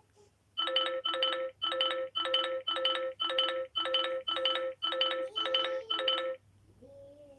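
Mobile phone ringtone: a short electronic pattern of steady tones repeated about twice a second, starting just under a second in and stopping at about six and a half seconds.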